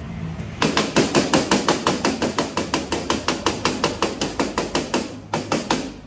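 Hand hammer striking a piece of steel in a fast, even run of blows, about six a second, starting about half a second in; after a short pause near the end come three more quick blows.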